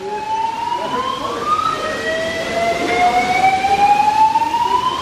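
Building fire alarm sounding an evacuation signal: a wailing tone that climbs slowly in pitch, drops back about two seconds in, and climbs again.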